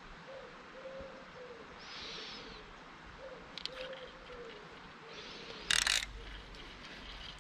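A pigeon cooing in a run of short, low, slightly falling notes, repeated every half second or so. A brief loud noise near the end stands out above it.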